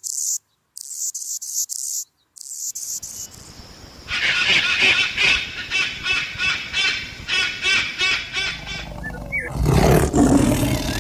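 A succession of animal sounds: a high, pulsing insect chirping for the first few seconds, then a run of rhythmic repeated animal calls, and a loud low call near the end.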